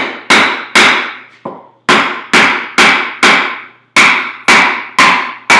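Wooden club mallet striking homemade wooden wedges set in the top of a maple log: a steady series of sharp knocks, about two a second with a short pause in the middle, each ending in a brief ringing tone. The wedges are being driven in to split the log along its grain.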